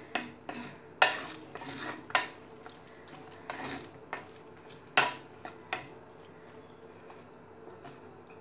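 Wooden spatula stirring wet okra curry in an earthenware pot, scraping and knocking against the clay sides in uneven strokes, the sharpest about a second in and about five seconds in. The stirring stops about six seconds in.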